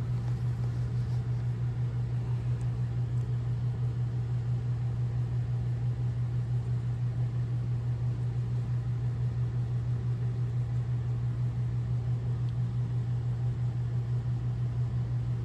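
A steady low hum with no change and no other events.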